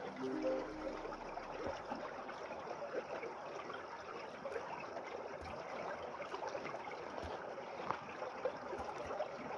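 Shallow, partly frozen mountain stream trickling and gurgling over stones beneath ice ledges, a steady running-water sound.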